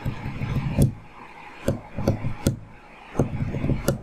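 Irregular dull thumps and knocks, in three short clusters with four sharp clicks among them.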